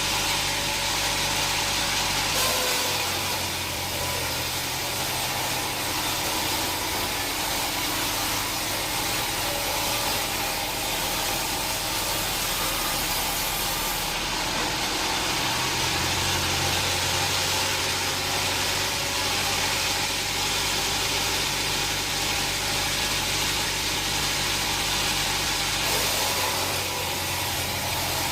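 Sawmill machinery running steadily: an engine-driven saw with a strong high hiss over the engine note. The pitch shifts a few times, about two seconds in, around the middle and near the end, as the load changes.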